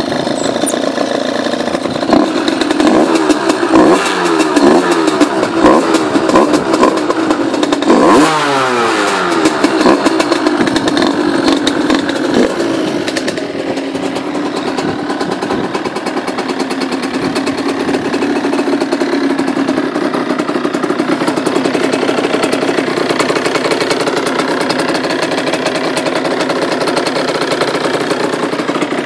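Derbi Senda's two-stroke single-cylinder engine, bored out with an Airsal 70 cc kit and running through a Yasuni Cross exhaust, revved in a string of quick throttle blips with one bigger rev about eight seconds in. It then settles to a steady idle.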